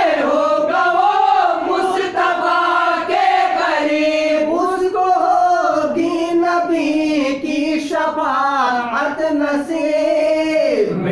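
A naat sung by a group of voices: a melodic vocal passage held in long, wavering notes between the sung lines.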